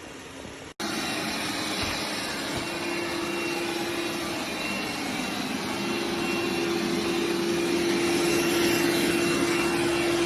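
MOVA S10 robot vacuum motor running at high speed: a loud rush of air with a steady whine. It starts abruptly a little under a second in and grows slightly louder.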